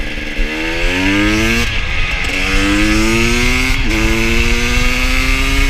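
KTM 250 supermoto motorcycle engine accelerating through the gears: the revs climb, drop briefly at an upshift about 2 seconds in and again just before 4 seconds in, then rise more slowly in the next gear.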